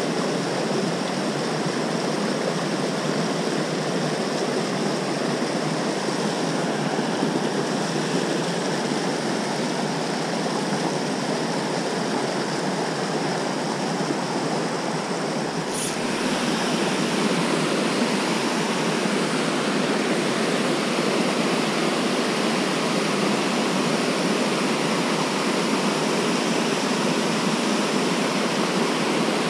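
Rushing water of a small mountain stream running over rocks, a steady rush. About halfway through it switches abruptly to the slightly louder, brighter rush of a small waterfall pouring into a pool.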